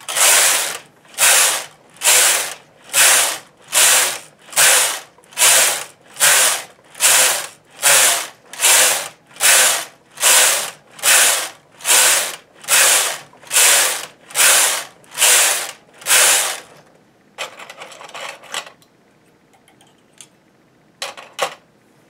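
Knitting machine carriage pushed back and forth across the metal needle bed, knitting about twenty rows in quick succession: each pass a loud rattle of the needles, a little over one pass a second. After the rows stop, a short softer rasp and a few light clicks near the end.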